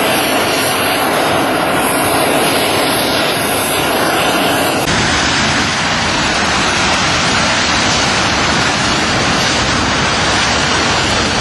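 Four turbofan engines of a C-17 Globemaster III jet transport running, a loud steady roar of jet noise.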